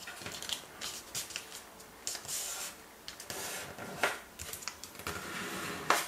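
Sheet of origami paper rustling and crinkling as hands fold it and press the crease flat, with a sharper crackle about four seconds in and another near the end.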